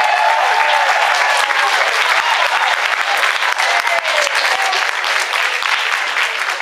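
A church congregation applauding loudly with fast, dense clapping, and a few voices calling out over it, most clearly in the first second.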